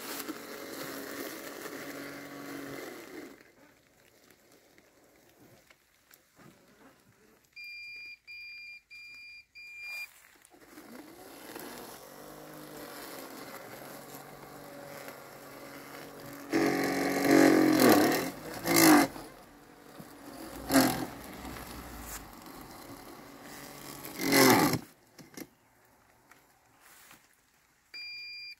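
LandXcape LX790 robotic lawn mower running in tall wet weeds: its electric motors whine and shift in pitch, stop briefly, then run again with several louder rough bursts midway. Four short, evenly spaced two-tone beeps come about 8 seconds in, and the same beeping starts again near the end.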